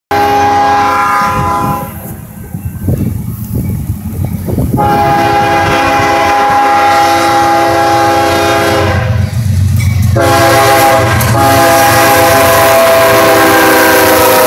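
CSX freight locomotive's multi-chime air horn sounding the grade-crossing signal: two long blasts, a short one, then a long one held as the engine reaches the crossing. A low diesel and wheel rumble grows louder beneath it as the train closes in.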